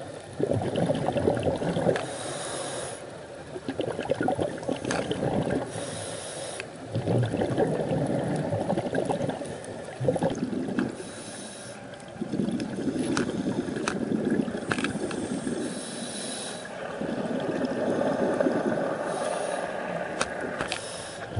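Scuba diver breathing through a regulator underwater: a short hiss on each inhale, then about two seconds of rumbling exhaust bubbles, repeating about five times. Scattered sharp clicks run through it.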